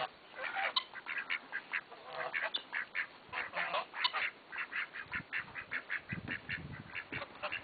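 Khaki Campbell ducks quacking in a busy run of short calls, several a second, with Embden geese honking among them.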